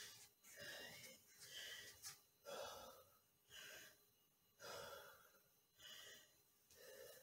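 A man breathing hard, a quick, audible breath about once a second, as he catches his breath between sets of bodyweight exercises.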